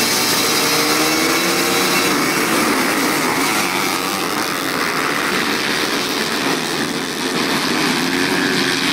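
A pack of motocross dirt bikes revving hard and accelerating off the start together, with many engines blending into a loud, steady whine. The engine notes rise and fall as the riders twist the throttle and shift.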